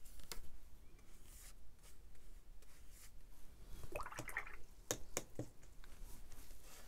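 Wet watercolour brush dabbing and swishing paint, mixing in the palette and brushing it onto sketchbook paper, with a few light clicks about five seconds in.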